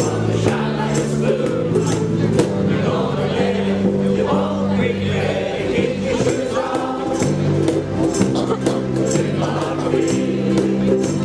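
Ukulele band strumming in a steady rhythm while the group sings.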